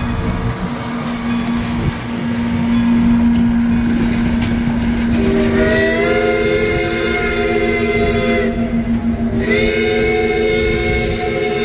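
Vintage passenger cars rolling past with a steady low hum. About five seconds in, a train's chord-toned warning signal sounds two long blasts, the first about three seconds long, then a one-second break before the second.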